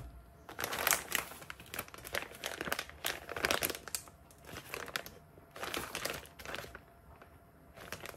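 Crinkling of a plastic frozen meal-kit pouch as hands pick it up and turn it over, in a string of irregular rustling bursts, with a short last one near the end.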